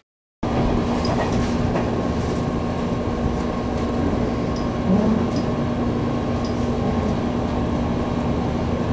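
Running noise inside the carriage of a JR Kyushu 885-series 'White Kamome' limited express electric train at speed: a steady rumble of wheels on rail with a steady low hum over it. It starts abruptly just after the start.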